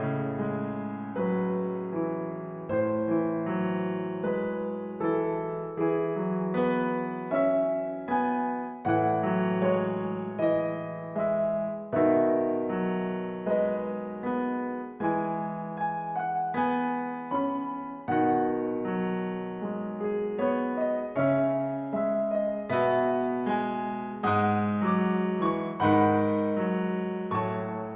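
Background piano music: a gentle piece of struck notes and chords, each note dying away.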